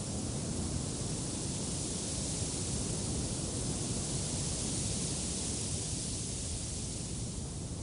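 Wind blowing steadily: a low rumble under a high hiss, swelling a little through the middle.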